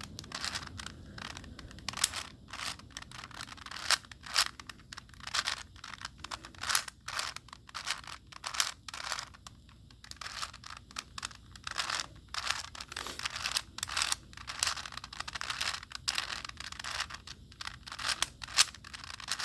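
Plastic 4x4x4 Rubik's cube layers being turned by hand in quick succession: an irregular run of clicks and scraping, the 15-move parity algorithm that flips a reversed edge pair.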